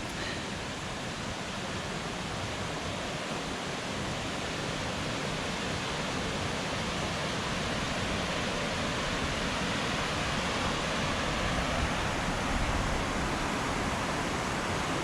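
Waterfall in rainy-season flow, a steady rush of falling water that grows slowly louder.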